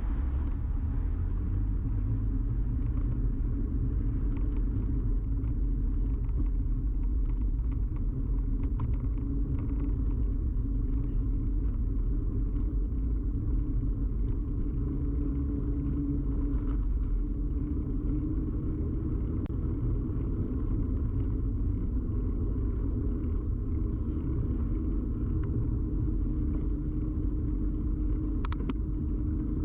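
Steady low rumble of a bicycle in motion, picked up by a camera mounted on the bike: tyres rolling and the frame vibrating, with a few faint ticks.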